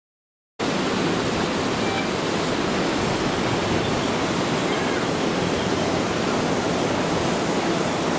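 Steady rushing seaside noise of ocean surf and sea wind. It cuts in suddenly about half a second in and then holds at an even level.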